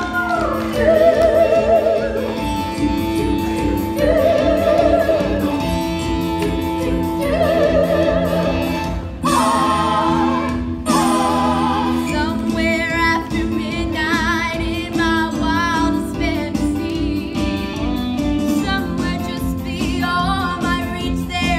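A female vocalist singing through a handheld microphone over instrumental accompaniment, holding long notes with vibrato.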